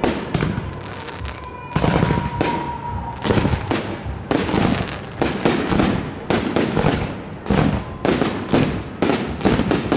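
Fireworks display: shells bursting in sharp bangs, at first a few at a time, then in rapid, dense volleys through the second half. A thin steady whistle sounds for about a second, roughly two seconds in.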